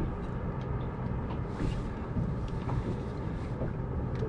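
Steady low hum of a boat's engine idling, with wind noise on the microphone and a few faint clicks.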